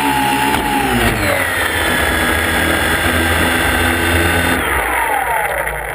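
Multirotor drone's electric motors and propellers whining, heard from on board. The pitch drops about a second in, holds steady, then slides down again near the end as the motors throttle back and the drone settles toward the ground to land.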